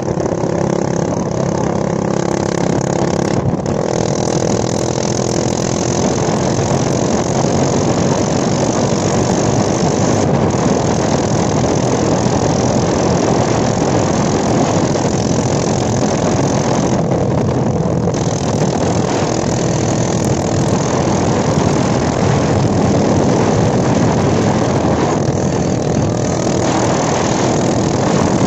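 Yamaha dirt bike's engine running steadily while riding along the road. Its even hum is clear for the first few seconds, then mostly buried under a steady rush of wind on the microphone.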